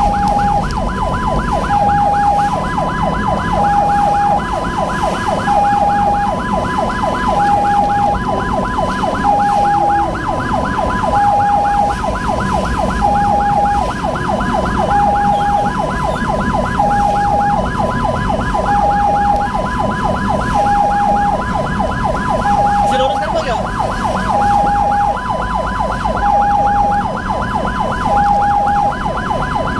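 Ambulance siren sounding without a break: a fast, continuous yelp with a two-tone hi-lo pattern over it, switching between the two tones about once a second. Vehicle and road rumble runs underneath.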